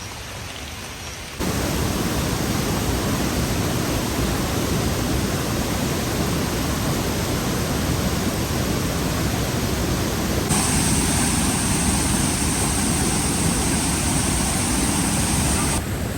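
Steady rushing of a waterfall. It jumps abruptly louder about a second and a half in, turns brighter and hissier about ten seconds in, and drops back just before the end.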